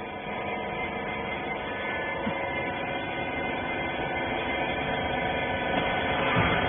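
Hydraulic baler's motor and pump running with a steady hum, getting slightly louder toward the end.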